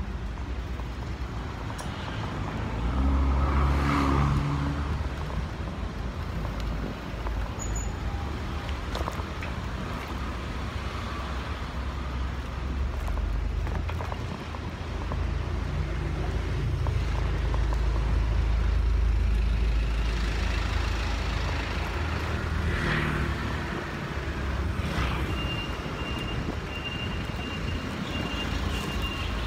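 Street traffic heard from a moving bicycle, with a heavy low rumble of wind on the microphone that swells a couple of times. A thin steady high tone sounds near the end.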